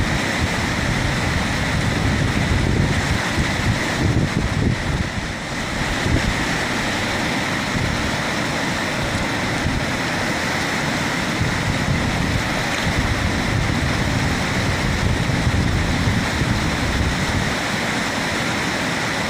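River rapids rushing: a steady, full wash of churning water, with low buffeting that may be wind on the microphone.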